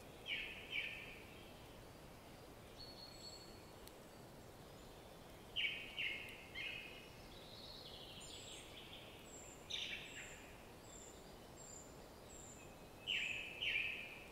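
Birds calling: short, sharp calls that fall in pitch, in pairs and threes every few seconds, with a thin, very high series of short notes, about two a second, through the middle. Faint steady hiss of outdoor background noise underneath.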